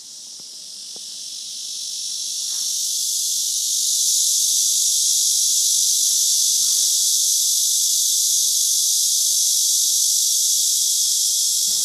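A cicada calling: its loud, high buzzing hiss swells over the first four seconds, then holds steady.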